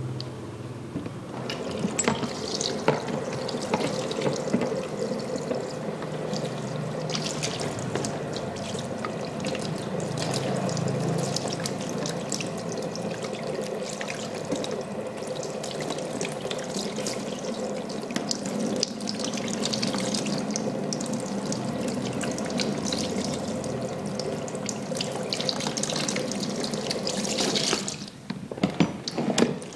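Steady rush of water from a salon shampoo-basin tap, with scattered small clicks and handling sounds. The water cuts off abruptly near the end, followed by a few clicks.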